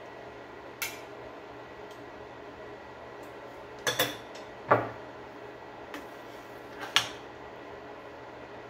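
Metal kitchen utensils knocking and clinking against a pan and plate while food is served: a few separate clinks, the loudest about halfway through, over a steady low background hum.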